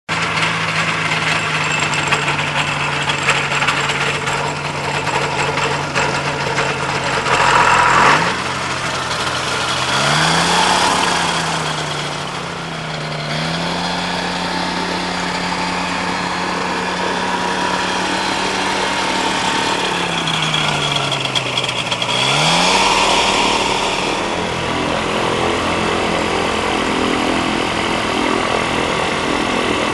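Microlight trike engine running at low power, its pitch rising and falling several times as the throttle is opened and closed.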